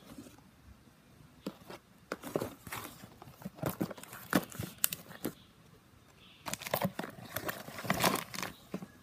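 Plastic wrapping and bags crinkling, with light scrapes and taps of cardboard boxes being handled, in two spells of a few seconds each.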